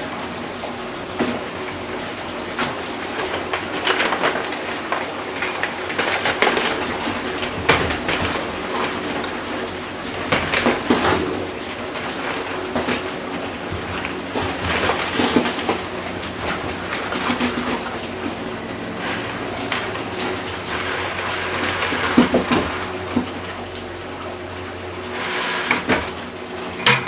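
A 55-gallon barrel sugar-syrup mixer running, with a steady low motor hum and water churning in the barrel, while granulated sugar is poured in from a plastic 5-gallon bucket. Scattered knocks sound through it.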